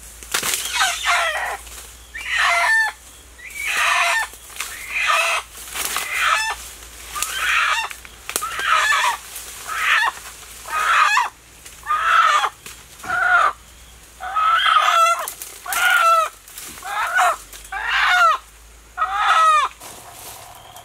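Rooster squawking in distress, a loud harsh call repeated about once a second, each call ending in a downward slide in pitch. The calls come from a bird that has been caught and is held by its wings.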